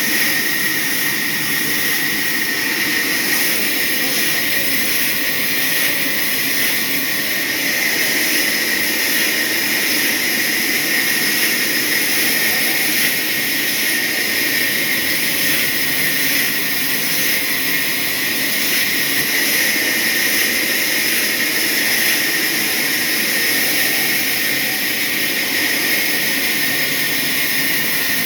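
Sawmill saw blade cutting through a hardwood log: a loud, steady machine noise with a high-pitched whine running through it.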